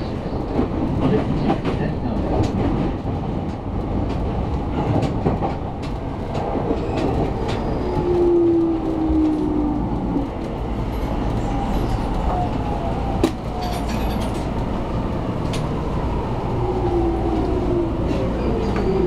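Running noise inside an electric commuter train slowing into a station: a steady rumble with wheels clacking over rail joints and points. A whine slides down in pitch as the train brakes, and there is a sharp knock about two-thirds of the way through.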